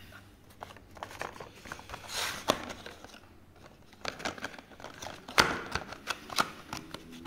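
Hard cardboard packaging being handled on a table: rustling and crinkling with scattered sharp clicks and taps, the loudest a sharp knock about five seconds in.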